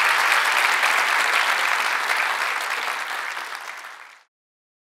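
Audience applauding: a dense patter of many hands clapping that slowly thins, then cuts off abruptly about four seconds in.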